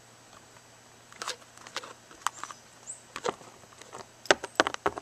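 Plastic toy figures tapping and clicking against a hard plastic surface as they are hopped and moved by hand: scattered light taps from about a second in, coming in quick clusters near the end.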